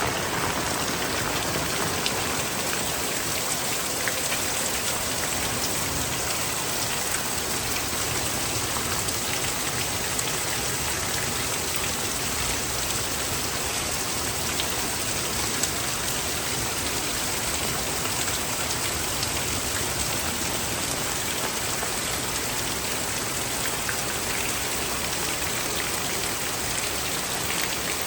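Heavy rain falling steadily, with a constant dense hiss and scattered drops striking nearby surfaces.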